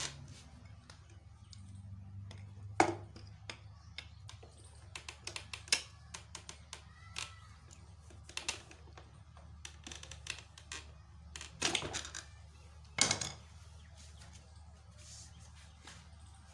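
Hand tools working on the metal underside of a sewing machine to loosen the motor's mounting screw: scattered sharp clicks and knocks, the loudest about three seconds in and near thirteen seconds, with a cluster just before it.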